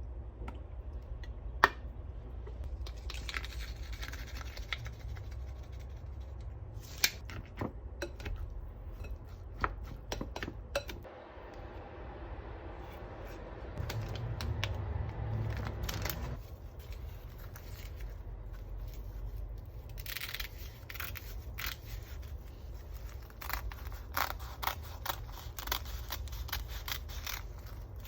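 Scattered light clicks, taps and scrapes of small objects being handled, with a longer stretch of scraping about halfway through, over a steady low hum.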